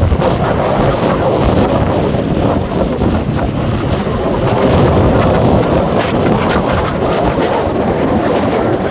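Gale-force wind, about 35 mph, buffeting the microphone in a loud, steady rumble, with storm surf crashing on the beach beneath it.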